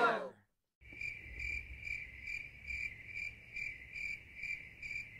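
Crickets chirping in a steady, even pulse, about two and a half chirps a second, starting abruptly out of dead silence about a second in: the stock comedy 'crickets' sound effect for an awkward silence.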